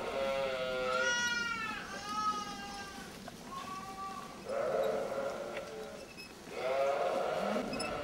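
A flock of penned sheep bleating, about six calls one after another and overlapping, one of them higher and falling in pitch.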